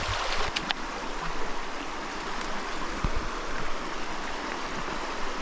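Shallow river running over a rocky bed, a steady rushing, with a few light knocks and clicks of sandalled footsteps on the river stones.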